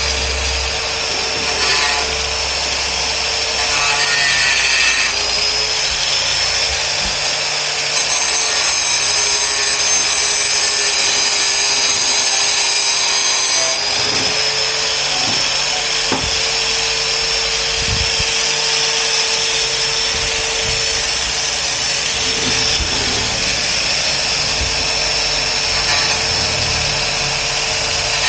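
Angle grinder running steadily, grinding a Kingsong S18 electric unicycle's mudguard piece. Its motor whine dips slightly in pitch now and then as the disc bears on the work.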